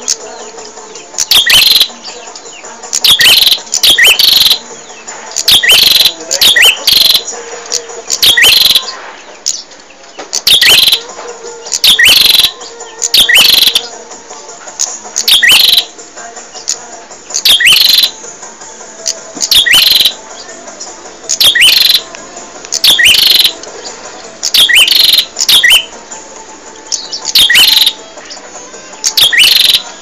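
Prenjak songbird singing loud, short chirping phrases, repeated about every one and a half to two seconds.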